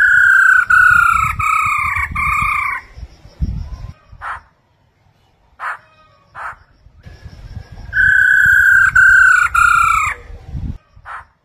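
Black-throated laughingthrush calling. Two runs of loud, clear whistled notes, each a few notes sliding slightly downward over two to three seconds, come at the start and again about eight seconds in, with short single calls between them.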